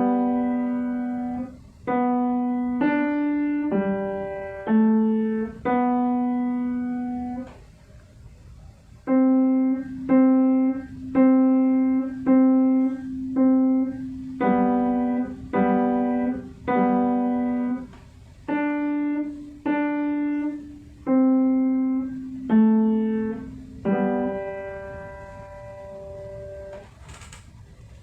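A piano playing a slow melody, mostly one note at a time, each note struck and dying away; it pauses briefly about eight seconds in, and the last note rings on and fades out near the end.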